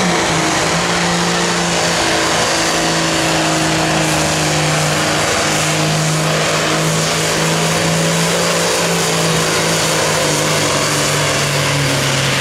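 Engine of a modified John Deere Classic Super Stock pulling tractor held at full throttle under heavy load while it drags a weight-transfer sled. The note stays high and steady throughout, dipping slightly a couple of times.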